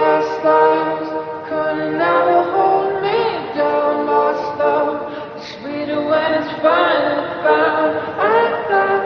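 Voices singing in a choir-like blend with no clear instrumental backing, starting abruptly and moving through held notes that bend and slide in pitch.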